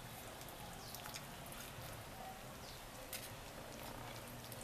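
Faint, scattered clicks of a knife and fork working a roast chicken leg on a serving platter, over a low steady background hum.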